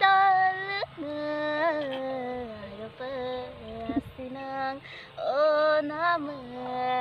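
A young woman singing a Mising-language song unaccompanied, in long held notes that bend in pitch, phrase after phrase with short breaths between.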